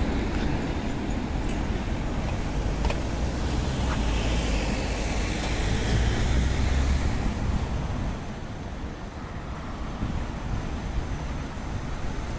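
City street traffic: a heavy vehicle passes close with a low rumble that swells and then fades about two-thirds of the way through, leaving lighter traffic noise.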